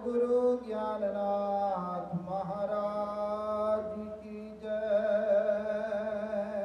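Devotional hymn chanted by a single voice in long, slowly wavering held notes over a steady drone.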